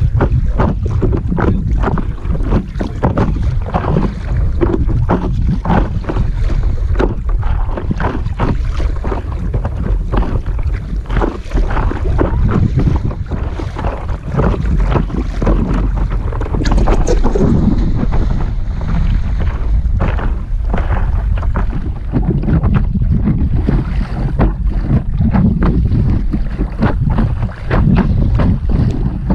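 Wind buffeting the microphone of a camera mounted on a stand-up paddleboard, with choppy water slapping and splashing irregularly against the board's nose as it is paddled.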